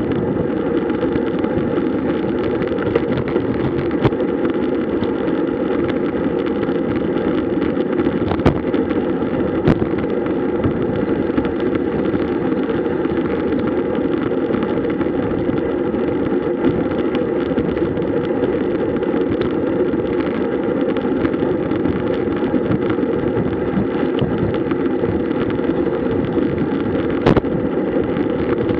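Steady rushing wind and tyre noise on a camera riding along on a road bicycle, with a few sharp clicks scattered through.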